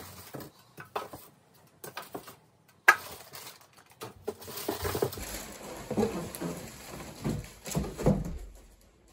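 Cardboard packing and plastic wrap being handled in a shipping box: scattered crackling, a sharp click about three seconds in, then heavier rustling and bumping as the plastic-bagged 3D printer is lifted out of the box.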